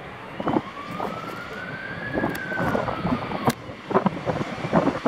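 Ambulance siren wailing in a slow rise and fall of pitch, one sweep lasting about three seconds, with the next sweep beginning near the end.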